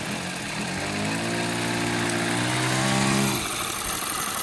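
Small engine of an RC model airplane running at a steady pitch, dropping to a lower note about a second in, then cutting out with a brief sag about three and a half seconds in. A thin high whine follows near the end.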